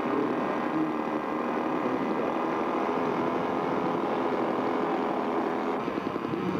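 Radio-controlled scale model airplane's engine running steadily.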